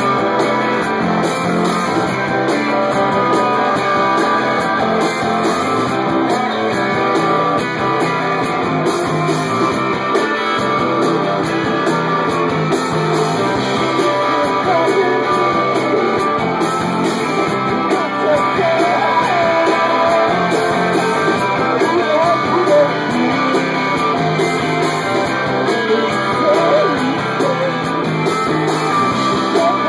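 Rock music led by guitar, with singing.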